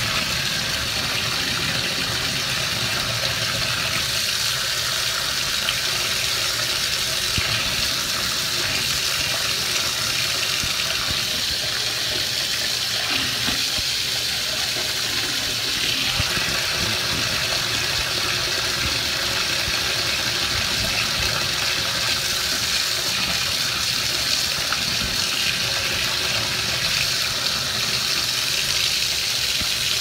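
Bathtub faucet running: a steady stream of water pouring from the spout into the filling tub.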